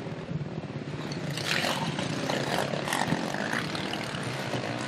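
Several racing quad engines running and revving as the quads struggle for grip in deep mud, with a cluster of sharper noisy bursts about halfway through.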